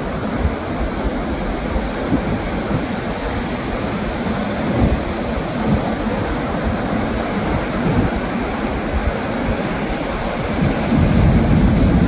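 Surf washing over rocks with wind rumbling on the microphone: a steady rushing, with stronger gusts near the end.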